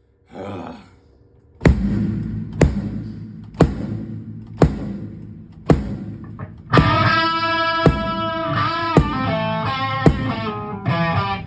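Kick drum struck on its own about once a second for a line check. About two-thirds of the way in, a distorted electric guitar comes in over it with held chords that change a few times, louder than the drum.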